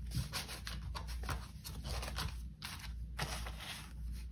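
Paper banknotes being handled and counted: irregular crisp rustles and flicks, several a second, as bills are peeled off and sorted.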